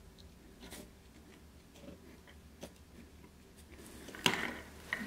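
Faint, scattered ticks and taps as a car's main relay and its soldered circuit board are handled during resoldering, then a louder knock and rustle about four seconds in as the relay is moved.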